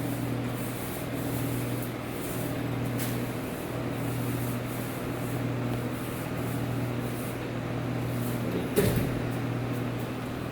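Paint roller being rolled up and down on a wall: a repeated rubbing sound that swells and eases with each stroke, over a steady low hum. A single sharp knock near the end.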